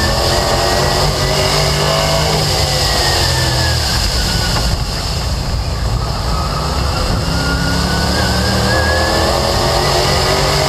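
Late Model stock car's V8 engine at racing speed, heard from a camera mounted on the car. The engine note falls as the driver lifts for a turn about two to four seconds in, then climbs again as he gets back on the throttle around six to nine seconds in.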